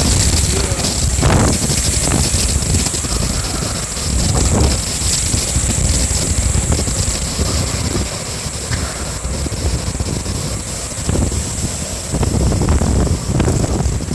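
Strong typhoon wind gusting and buffeting the microphone, a deep rumble that swells and eases, with a steady hiss of wind-driven rain.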